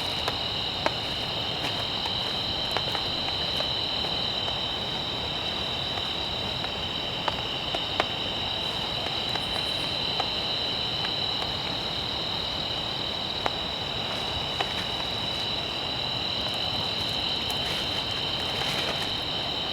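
Steady insect chorus: a constant high, two-toned trill over an even hiss, with a few sharp ticks scattered through.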